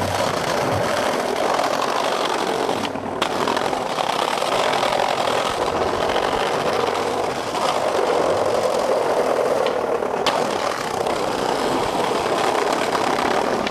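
Skateboard wheels rolling over brick paving, a steady rolling rumble with two brief breaks, about three seconds in and again near ten seconds.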